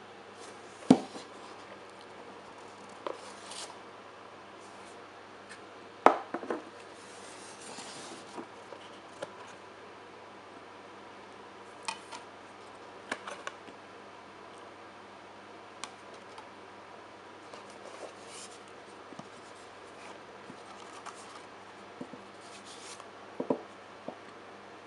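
Cardboard and plastic CD album packaging being handled and unpacked on a wooden table: scattered clicks, taps and short rustles, with two sharper knocks about a second in and about six seconds in.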